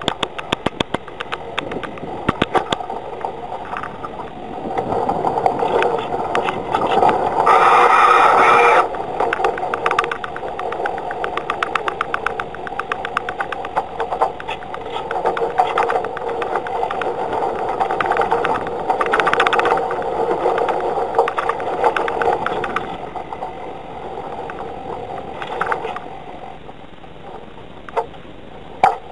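Onboard sound of a Hurricane 1000 radio-controlled yacht under sail: a continuous mechanical whirring with rapid clicking and ticking as the hull moves through the water. There is a louder stretch a little over a quarter of the way in.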